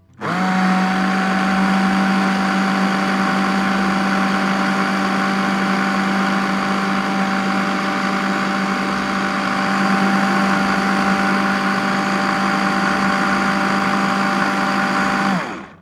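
Electric hand blender on its chopper bowl, running steadily as it purées warm fruit smooth for baby food. It cuts in just after the start and winds down near the end, its pitch sagging as it stops.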